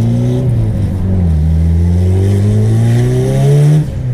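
Turbocharged Honda B-series four-cylinder engine accelerating, heard from inside the cabin: the revs dip about a second in, then climb steadily for over two seconds before cutting off sharply near the end.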